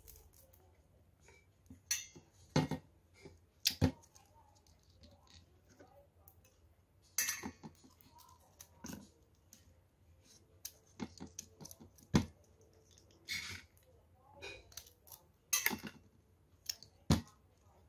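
Litchis being cut and peeled by hand with a small knife: scattered crackles and clicks from the rough, brittle skin, with occasional light knocks against stainless steel bowls.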